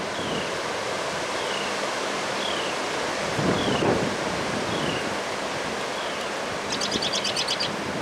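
Strong wind rushing through bare trees, swelling in a gust about halfway through. A bird repeats a short falling chirp about once a second, and a rapid high trill sounds near the end.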